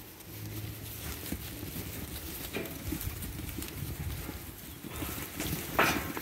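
Flock of Australian White x Dorper ewe lambs shuffling and milling in a yard, their hooves trampling on grass and dirt, with one short, loud sound near the end.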